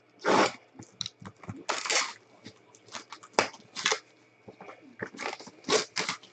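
Plastic shrink wrap being slit and torn off a trading card box, crinkling and ripping in a run of short, irregular bursts.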